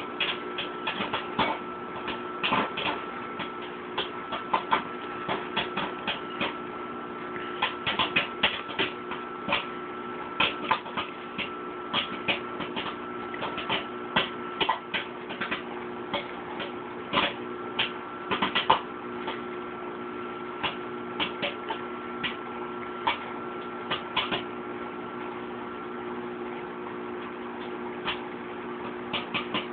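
Bag of microwave popcorn popping inside a running Whirlpool microwave oven, over the oven's steady hum. Sharp pops come thick and fast through the middle, then thin out and nearly stop over the last few seconds as the popping finishes.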